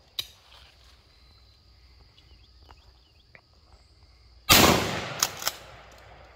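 A 20-gauge double-barrel shotgun fires a single loud shot about four and a half seconds in, the report dying away over about a second, followed by two sharp clicks. There is one sharp click near the start.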